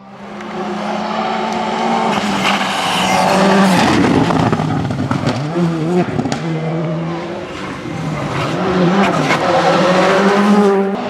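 Rally car engines at full throttle, pitch rising and dropping repeatedly through gear changes, with tyre and loose-surface noise as the cars go past.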